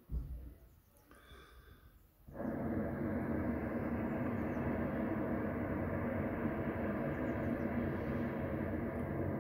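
A low thump at the start, then a steady rumbling noise that starts suddenly a little over two seconds in and carries on unchanged.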